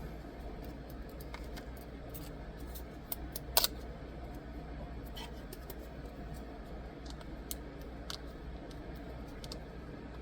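Small clicks and taps of hands handling packaging and screen-protector kit parts, with one louder sharp click a little over three seconds in, over a steady low hum.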